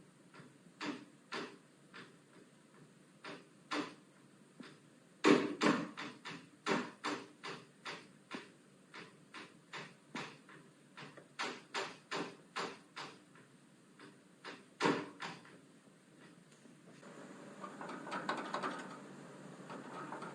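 A door rattling and knocking in its frame, shaking on its own in a long run of irregular sharp knocks, at times two or three a second, the loudest about five seconds in and again near fifteen seconds. This is the sort of shaking that people blamed on small tremors accompanying the booms. Near the end the knocks give way to a rustling noise.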